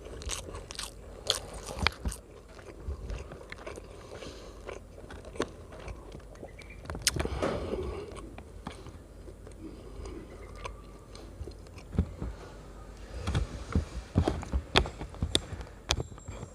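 A person eating roasted chicken rice close to the microphone: chewing and biting, with many short sharp mouth clicks that come thick and fast near the end.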